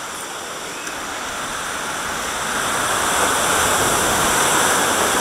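Rushing whitewater churning around a river-rapids ride raft, a steady roar of water. It grows louder between two and three seconds in as the raft passes into a concrete tunnel.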